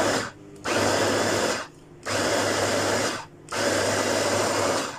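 Capsule-style mini electric food chopper pulsed by pressing its lid, the motor running with a low hum as the blades chop sweet corn kernels, in bursts of about a second with short stops between presses: the tail of one burst, then three more. The short pulses are meant to keep the corn coarse rather than smooth.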